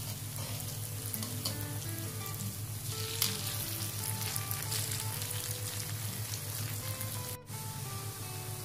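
Grated cassava fritters sizzling steadily in a shallow layer of oil and margarine over a low flame, with the light scrape and tap of metal tongs turning them in a nonstick pan.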